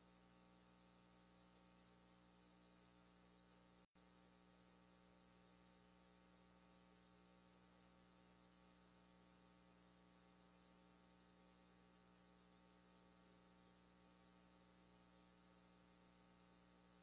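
Near silence: a faint, steady electrical hum on the recording, with a brief dropout about four seconds in.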